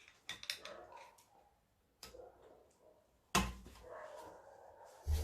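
Scattered light metal clicks, then a heavier knock a little past three seconds in, as hand tools work at the large circlip holding the front hub bearing in a steering knuckle.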